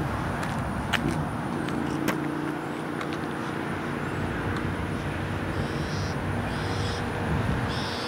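Outdoor background noise: a steady low hum with a few sharp clicks in the first two seconds, and three short high-pitched calls in the last few seconds.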